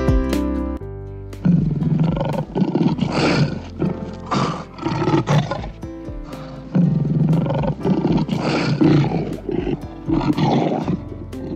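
Lion roaring: a run of deep, rough roars and grunts in two bouts with a short pause between them. It follows a snatch of music that stops about a second and a half in.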